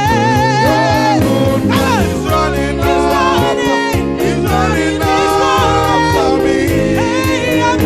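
Music with a singing voice held in wavering, vibrato-laden notes over a steady beat.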